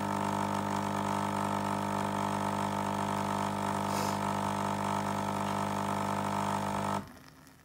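Nescafé Dolce Gusto capsule machine's pump running with a steady hum while it dispenses the vanilla milk capsule into the mug, cutting off suddenly about seven seconds in as the dispense ends.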